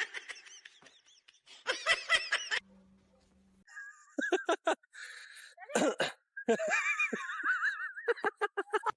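People laughing in short bursts, with breaks between clips.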